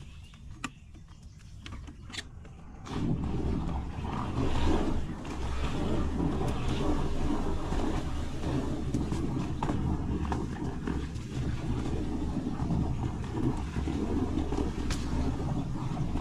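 Ranger bass boat's motor running steadily with a low, even drone that sets in sharply about three seconds in; before it, only faint scattered clicks.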